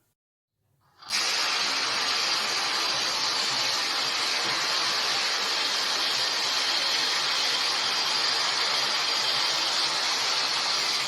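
Godzilla sound effect from the Millennium and 1954 films: a loud, long, steady hissing roar that starts about a second in and holds without a break.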